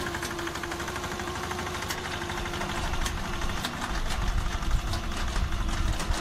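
Engine of a small two-wheel tractor pulling a trailer, chugging with a rapid steady beat and getting louder as it approaches, loudest near the end.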